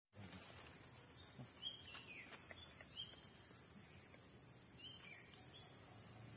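Steady high-pitched drone of an insect chorus, with a few short, falling chirps over it.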